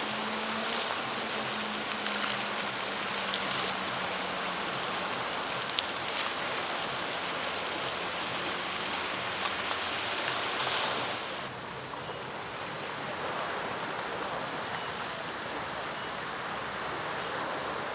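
Fountain water splashing in a steady, continuous rush. About eleven seconds in it changes abruptly to a slightly quieter, duller rush.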